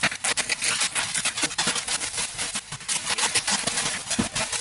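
A white woven plastic shipping sack being cut open and pulled off a plastic-wrapped bundle, giving a dense, continuous crackling rustle of plastic.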